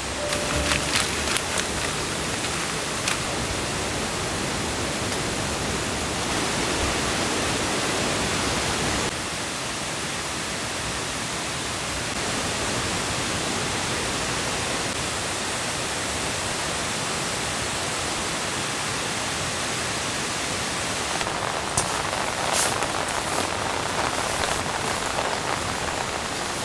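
Steady rain falling, an even hiss, with a few sharp ticks near the start and more in the last few seconds.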